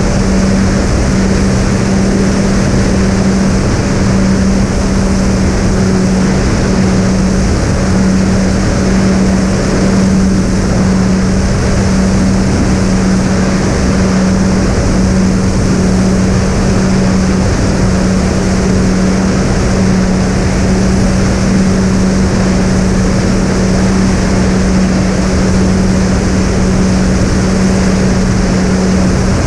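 Twin Sunnysky 2212 brushless motors spinning three-blade propellers at steady cruise: a constant loud drone with one steady hum under a wide rush of wind noise.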